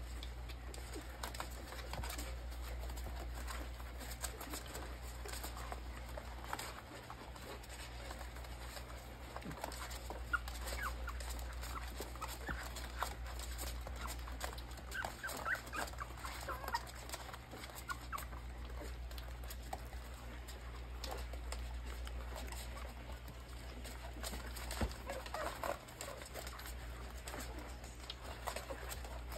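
Newborn beagle puppies squeaking and whimpering faintly as they nurse, in scattered short high squeaks that bunch up about halfway through and again near the end, over a steady low hum.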